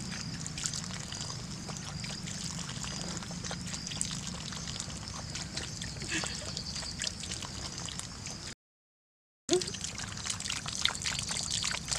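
Thin stream of water from an outdoor tap trickling onto wet soil, with small wet clicks as a pug laps from it. The sound cuts out for about a second two-thirds of the way through.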